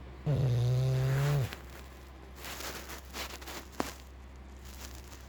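English bulldog snoring in its sleep: one loud, even-pitched snore lasting just over a second, followed by softer breathing and a brief click.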